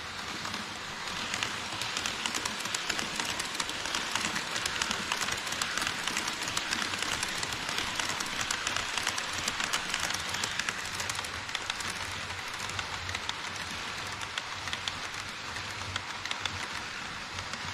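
HO-scale model trains rolling past on the layout track: a steady rattling hiss full of rapid clicks as the wheels run over the rail joints. It is louder from about a second in to about eleven seconds, while the E5 Shinkansen set passes close by, then eases a little as the container freight wagons run on.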